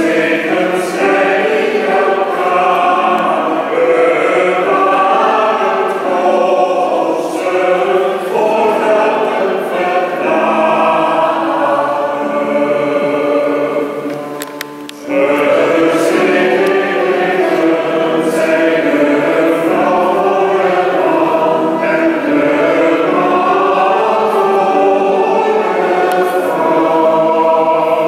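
Choir singing in parts, with a short break about halfway through before the next phrase begins.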